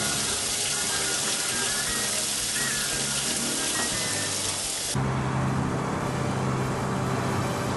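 Top-loading washing machine filling with water: a steady rush of water into the tub. About five seconds in, it cuts off abruptly and a steady low hum takes over.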